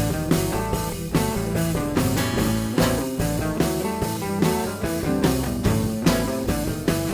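Band playing an instrumental rock passage with guitar over a steady beat.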